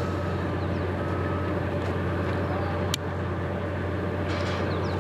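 Diesel locomotive engine idling with a steady low hum. A single sharp click sounds about three seconds in.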